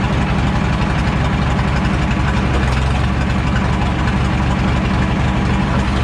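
Diesel engine of a jump-started bulldozer running steadily at idle.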